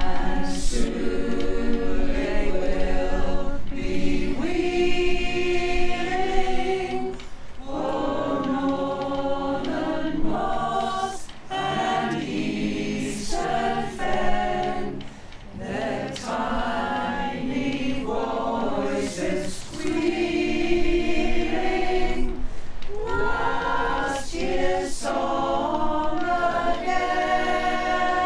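Choir singing a cappella: sustained chords in phrases, with brief breaks between phrases.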